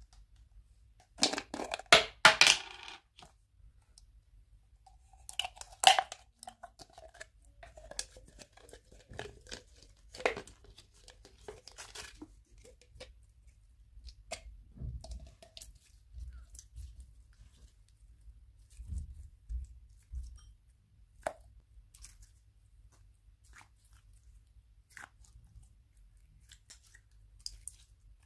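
Clear green slime handled in the hands: scattered sticky clicks, crackles and soft pops as it is pulled out of its plastic tub and squeezed. The loudest part is a burst of crackling about a second or two in, as the plastic tub is handled and opened.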